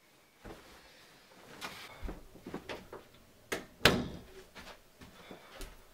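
A person getting up and walking with a few soft knocks and thuds, then an interior door handled at its knob and pushed shut with a sharp bang about four seconds in.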